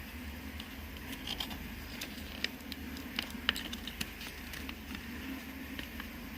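Mouth and food noises of someone eating: a run of small, crisp clicks and crackles, thickest in the middle few seconds, over a steady low hum.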